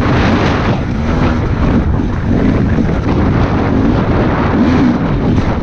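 Dirt bike engine revving up and down under load, with heavy wind buffeting on the helmet-mounted camera's microphone.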